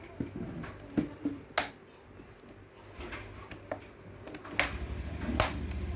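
Plastic snap clips of a Lenovo IdeaPad 320 laptop's bottom case clicking into place as the case is pressed shut: a handful of sharp clicks at uneven intervals, with handling rumble growing in the second half.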